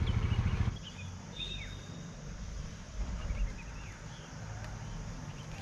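An engine idling with an even low pulsing, which stops abruptly under a second in. After that there is quiet open-air ambience with a few faint bird chirps.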